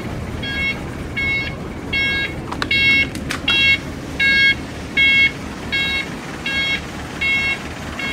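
An electronic beeper on a home-built farm truck sounds an even, repeating beep, about one every three-quarters of a second, over the truck's Kia engine running. A few sharp clicks come about three seconds in.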